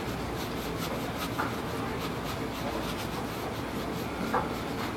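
Paintbrush rubbing and scratching across canvas in short, repeated strokes, over a steady low background rumble.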